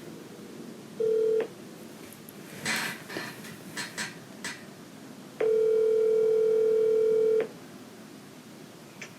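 Telephone ringback tone of an outgoing call: a steady beep, first cut short, then one full two-second ring about four seconds later. Faint clicks and handling rustles fall between the rings.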